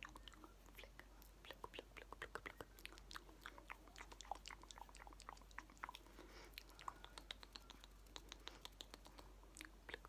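Soft ASMR mouth sounds: a quick, uneven stream of wet lip and tongue clicks and smacks close to the microphone.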